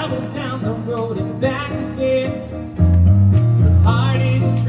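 A man singing live into a microphone over instrumental backing, with a bass line that moves between held notes.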